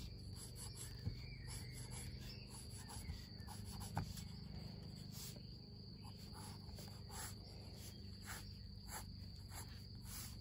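Insects chirring with a steady high-pitched trill, with a few light scratches of a pencil drawing lines on sketchbook paper.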